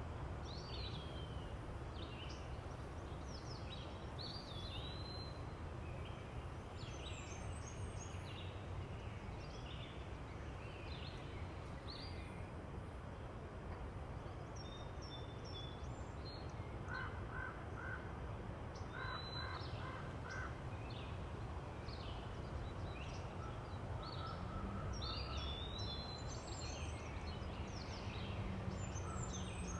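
Several wild birds calling and chirping, many short high calls scattered throughout, with a lower quick run of repeated notes about halfway through, over a steady low background rumble.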